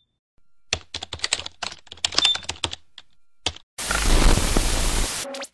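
Outro sound effects: a quick run of sharp clicks like typing, then a loud burst of TV static hiss about a second and a half long, ending in a fast falling electronic whine.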